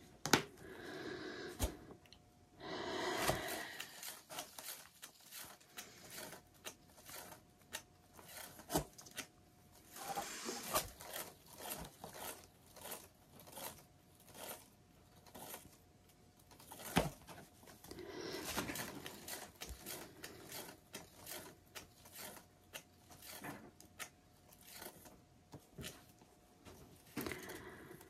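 Hands handling a paper towel and the painted record: rustling and crinkling with light scrapes and many small scattered clicks and taps, coming in several short bursts.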